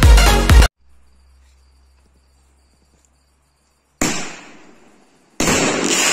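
Electronic dance music cuts off under a second in, then near silence. About two-thirds of the way through, a consumer firework goes off with a sudden burst that fades. It is followed by a loud, dense crackling hiss as the firework fires glittering, crackling comets.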